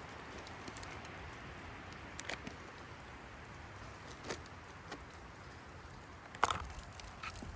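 Strong wind blowing steadily, with a few scattered clicks and knocks from handling cooking gear, the loudest about six and a half seconds in.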